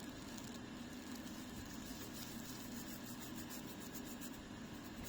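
Faint steady low hum with light small ticks and scratches over it.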